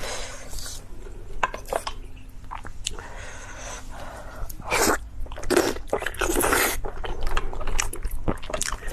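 Close-up eating sounds: biting and chewing with crunching, irregular and louder in a few bursts past the middle.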